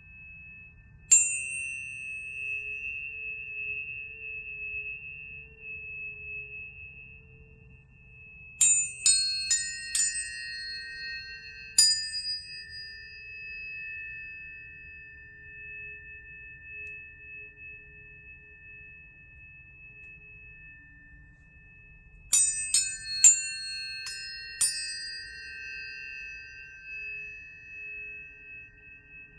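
Planetary tuning forks struck and left ringing: each strike is a sharp tap with a brief high clang, then two or three pure steady tones of different pitch sustain and slowly fade. One strike about a second in, a quick run of five strikes about a third of the way through, and four more near the end.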